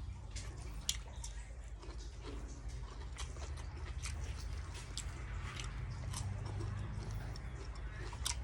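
A person chewing and eating grilled pork salad: scattered small mouth clicks and smacks, over a low steady rumble.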